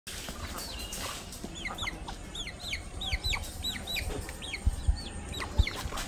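Chick peeping over and over: short high-pitched peeps that fall in pitch, about two or three a second, with a few low thumps in the last second or two.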